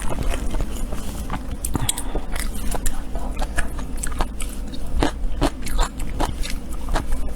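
Close-miked chewing and biting, with irregular crisp crunches.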